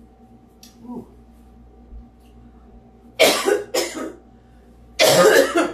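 A woman coughing hard from the heat of chipotle pepper: two coughs about three seconds in, then a longer fit near the end.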